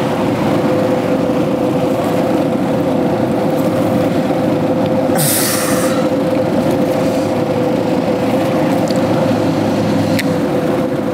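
A steady, loud drone from a running machine, carrying one constant hum tone, with a short hiss about five seconds in and a sharp click near the end.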